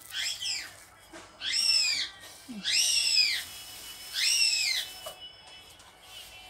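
A cat meowing four times, high-pitched, each meow rising and then falling in pitch.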